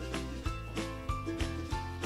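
Background music with a steady beat: short melodic notes over a sustained bass line.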